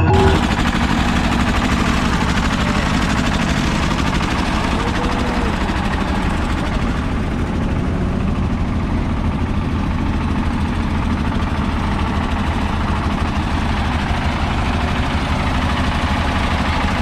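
A large engine running steadily, with a dense low hum that holds level throughout.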